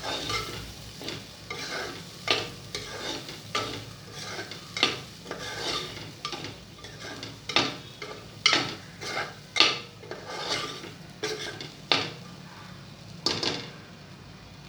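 A spoon stirring and scraping around a pan as toor dal is mixed into sizzling onion-tomato masala with sandge, in irregular strokes about once or twice a second. The stirring stops near the end, leaving a quieter sizzle.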